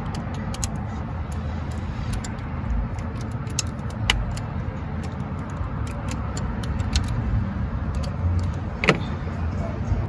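A ratchet clicking in short bouts as it tightens the small hold-down bolt of an ignition coil on a Ford 6.8 V10, with a sharper click about a second before the end. A steady low hum runs underneath.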